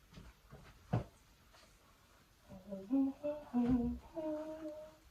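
A person humming a short tune of a few held notes, starting about halfway through, with a single sharp knock about a second in.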